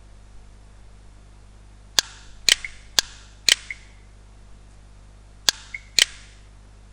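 Six sharp clicks, evenly spaced half a second apart: four in a row about two seconds in, then two more near the end, some followed by a brief faint high tone, over a faint steady low hum.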